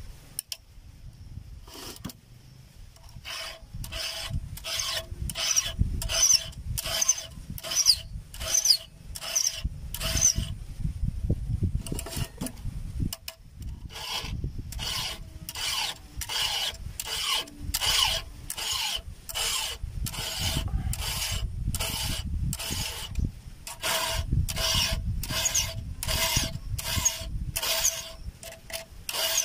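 Round chainsaw file rasping across the cutters of a chainsaw chain in quick strokes, about two a second, each with a faint metallic ring, sharpening the chain by hand. The strokes stop for a couple of seconds about halfway, then resume.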